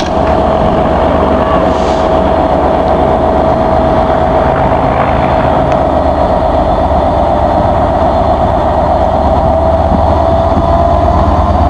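Class 67 diesel locomotive's EMD two-stroke V12 engine running at the platform, with a steady high whine over a low rumble. Near the end the whine rises in pitch and the rumble grows stronger as the engine powers up.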